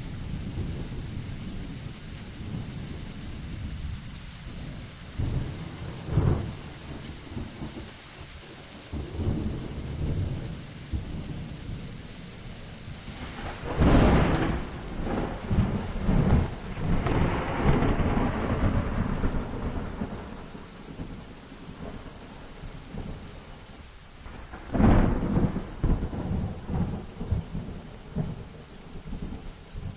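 Thunderstorm: steady rain under continuous rolling thunder, with sudden thunderclaps about six seconds in, at about fourteen seconds (the loudest, followed by a long rumble), and again at about twenty-five seconds.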